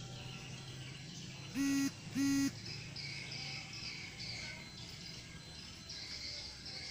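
Two short honks of a vehicle horn, flat in pitch and close together, about a second and a half in, over a steady background of insects chirping.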